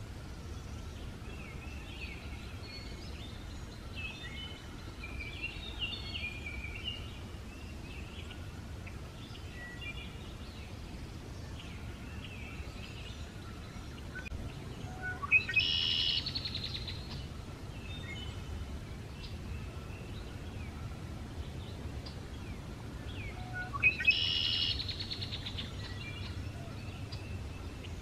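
Male red-winged blackbird singing its conk-la-ree song twice, each a short note followed by a buzzy trill of about a second, near the middle and again near the end. Softer bird chirping in the first several seconds.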